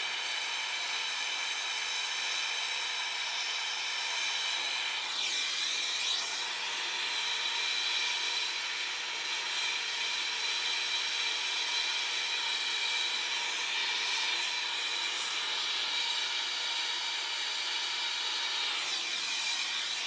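TurboTorch air-acetylene torch burning with a steady hissing rush and faint steady whistling tones, heating copper pipe for brazing. Its tone shifts slightly a few times.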